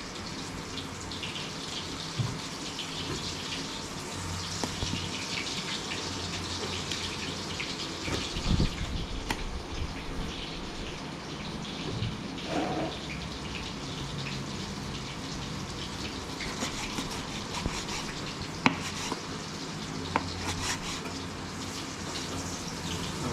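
Fish cakes shallow-frying in hot oil: a steady sizzle with crackling and spitting. A few sharp knocks, about two seconds in, near eight and a half seconds, and near nineteen seconds, are likely utensils on the pan.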